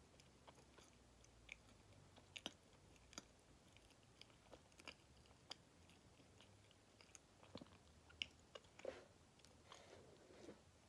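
Faint chewing of a soft kamome no tamago sweet, a baked cake filled with white bean paste, with small wet mouth clicks scattered throughout.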